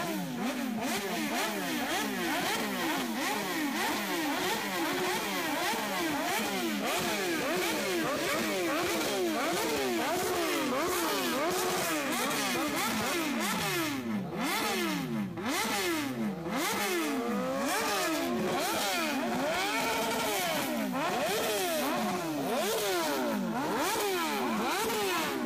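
Kawasaki Ninja ZX-14R and ZX-10R inline-four superbike engines revved hard while standing still. The pitch climbs and drops in quick, repeated throttle blips with no pause, and at times two engines overlap. The ZX-14R breathes through an aftermarket Brock's slip-on exhaust.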